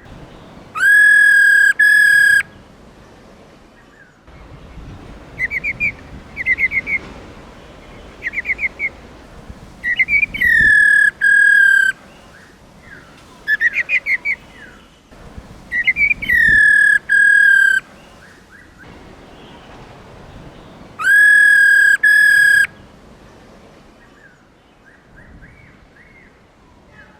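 Female black-throated laughingthrush calling: four loud, drawn-out whistled notes, with short bursts of fast rattling trills in the gaps between them.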